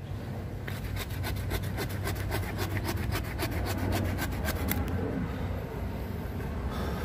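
Hand pruning saw cutting through the roots of an Argao gubat tree, with quick back-and-forth strokes of about four or five a second. There is a pause about five seconds in before the sawing starts again.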